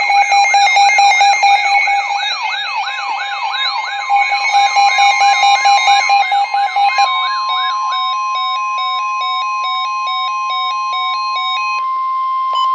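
Emergency alert tones announcing a broadcast flood warning. For about seven seconds a fast, repeating wail sweeps over steady tones. Then a steady high tone sounds with a stepping two-note alarm around it, and it cuts off sharply at the end.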